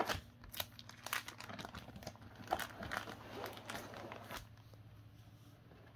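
Clear plastic sleeve pages of an art portfolio crinkling and rustling as they are handled and turned: a run of irregular crackles and clicks that dies down about four and a half seconds in.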